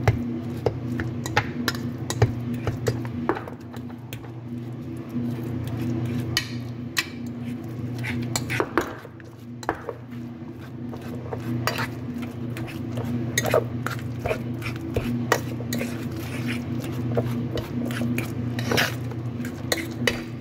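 A metal spoon mashing bananas in a bowl, clinking and scraping against the bowl's sides in irregular clicks.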